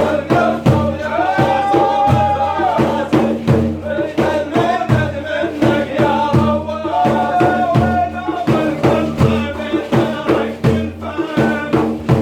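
Sufi dhikr chanting: a male voice sings with long held notes over a steady beat of drums.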